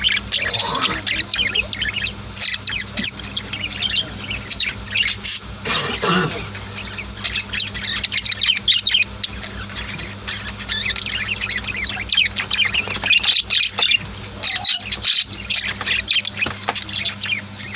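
A group of pet budgies and lovebirds chirping continuously, many short overlapping calls, with a steady low hum underneath.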